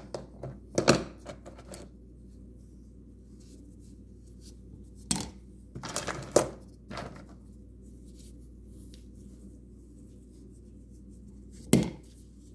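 Rough stones clicking and clacking against each other as they are picked out of a tray of rocks, in a few short clusters, with one sharp knock near the end.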